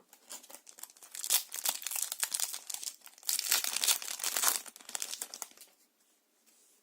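Yu-Gi-Oh booster pack's foil wrapper being torn open and crinkled in the hands: a dense crackle starting about a second in, loudest in two spells, stopping shortly before the end.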